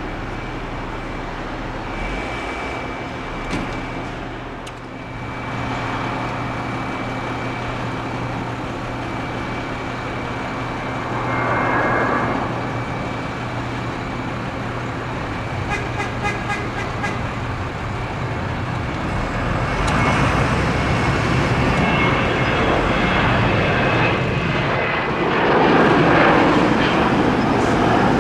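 Jet aircraft engines running: a steady rumble with a thin high whine, growing louder over the last several seconds.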